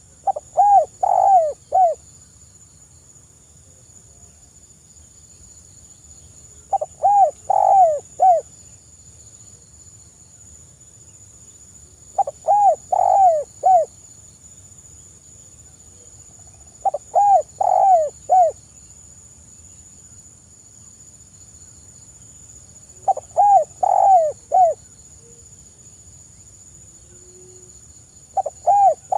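Spotted dove cooing: a phrase of several quick, soft coos, each about a second and a half long, repeated about every five to six seconds, six phrases in all, the last one cut off at the end.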